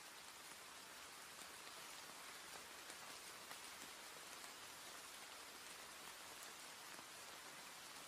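Faint, steady rain falling, a soft even hiss with scattered ticks of single drops.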